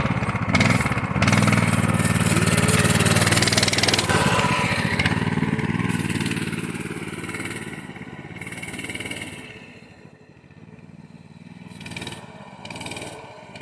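Riding lawn mower engine running, loud at first, then fading away over a few seconds about halfway through, with two brief swells near the end.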